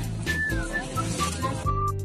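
Background music: a light tune with a whistled melody over a bass line.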